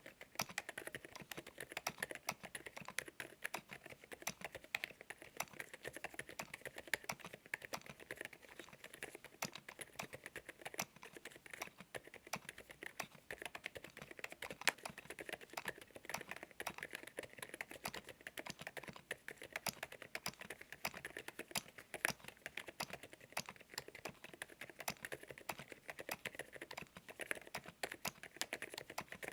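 Continuous typing on an Epomaker RT100 mechanical keyboard: a dense, irregular stream of key clicks.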